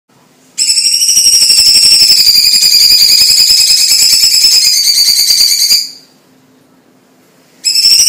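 Orange-bellied leafbird (cucak cungkok) singing a loud, high, rapidly pulsing trill for about five seconds. It breaks off for under two seconds and starts again near the end.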